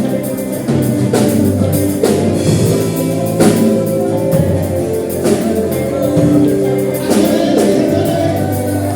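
Gospel worship music: singing over a band with a steady drum beat.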